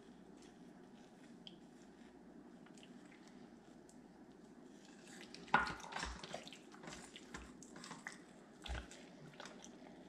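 Thick tomato paste being worked over chicken in a slow cooker with a spatula: wet squishing and scraping with a few sharp knocks, starting about halfway through. The first half is faint room tone.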